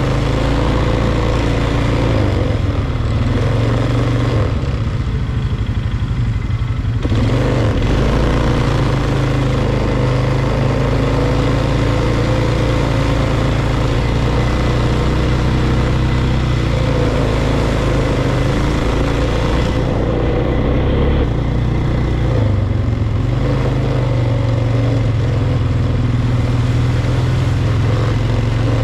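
Polaris ATV engine running at speed on a dirt trail, its note rising and falling as the throttle is opened and eased off.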